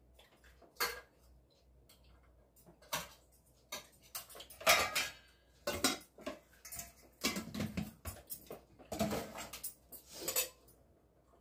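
Kitchen dishes and utensils clinking and clattering in irregular knocks, loudest about halfway through.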